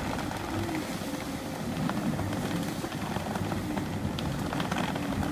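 Strong squall wind rumbling around a sailing catamaran, with rain drops ticking against the glass now and then.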